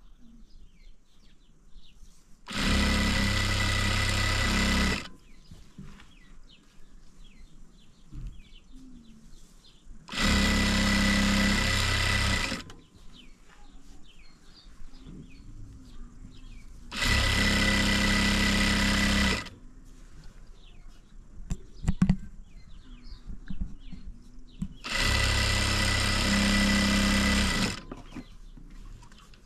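Sewing machine running in four steady bursts of about two and a half seconds each, starting and stopping abruptly, with short pauses between them.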